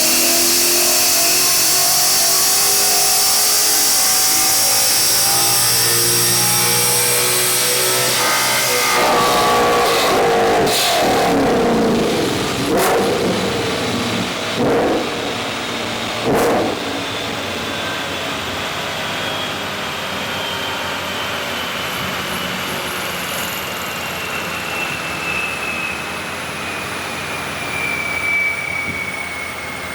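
2019 Mustang Bullitt's 5.0-litre V8 with long-tube headers, running an E85 tune, at full throttle on a chassis dyno, its revs climbing for about eight seconds before it lets off. Three short loud bursts follow a few seconds later. The engine then runs quietly under a thin whine that slowly falls in pitch as the car coasts down.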